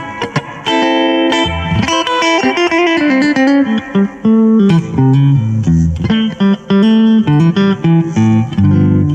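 Aiersi TL10 Telecaster-style electric guitar playing a quick melodic line of single notes, stepping down in pitch about two to four seconds in.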